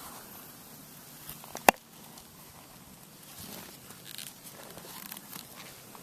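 A knife and leather pouch sheath being handled: one sharp, loud click a little under two seconds in, then soft rustling of the leather and a few light ticks.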